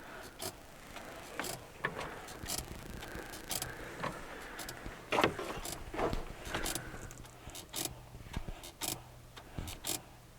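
Renault Duster 2's clutch squeaking as the pedal is pressed, a faint squeal a few seconds in among irregular clicks and a low hum. The owner suspects the squeak comes from the clutch master cylinder and release bearing, appearing only once the car is warm.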